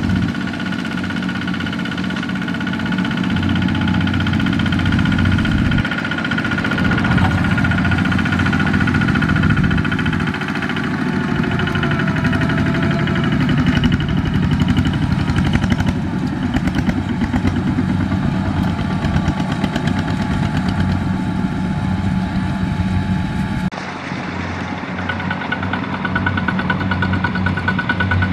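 Single-cylinder diesel engine of a Kubota RT155 two-wheel walking tractor running steadily under load as it pulls a trailer of rice sacks. The engine's tone changes abruptly about six seconds in, and again a few seconds before the end, where it briefly drops in level.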